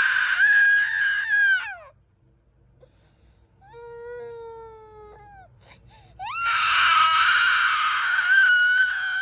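A 17-month-old toddler crying in disappointment. A long wail trails off about two seconds in, a softer whimper follows in the middle, and another loud, long wail starts about six seconds in.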